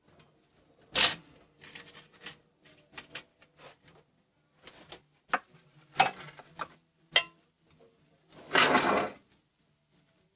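Metal spoon clinking and scraping against a stainless steel pan as roasted potatoes are spooned in: a sharp clank about a second in, a run of lighter clinks, two more clanks later, and a longer scrape near the end.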